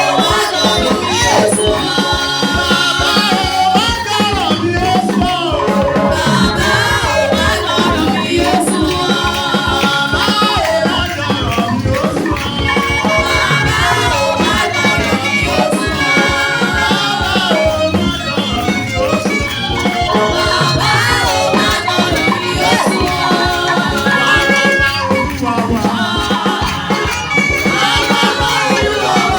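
Praise and worship music with group singing over a steady percussion beat.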